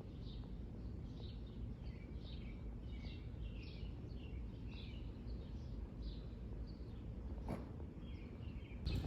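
A bird chirping: a run of short, high chirps, about two a second, that stops near the end, over a steady low rumble. A single click comes about seven and a half seconds in.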